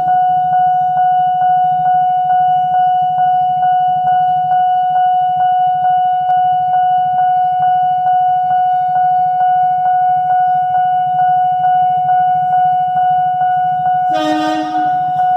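Railway level-crossing warning siren: a steady electronic tone pulsing about three times a second without a break. Near the end, a short horn blast sounds over it.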